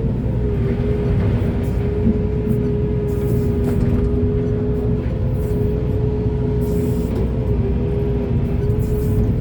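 Heavy earthmoving machinery's diesel engine running steadily under load, with a constant high whine over a low rumble and occasional faint scrapes.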